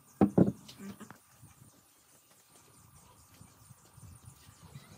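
Thick blocks of solid hardwood knocked against each other and set down on a wooden workbench: two sharp wooden knocks just after the start, a few lighter ones, then only faint handling sounds.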